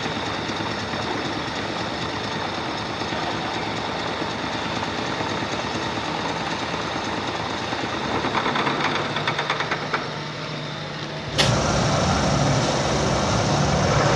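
Milling machine running with its end mill cutting a metal block clamped in a vise: a steady whir of the spindle and cutting. About two-thirds through, a rapid rattling chatter comes in for a couple of seconds, and near the end the sound changes suddenly to a louder, deeper running of the machine.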